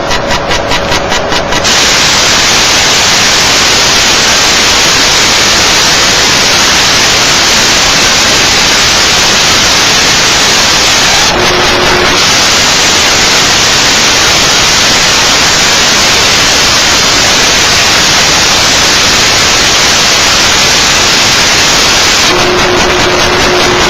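Weather radio receiver hissing with loud, steady static from poor reception. A pulsing buzz comes through for the first second and a half or so. The hiss breaks briefly about halfway with a short low tone, and a low steady tone comes in again near the end.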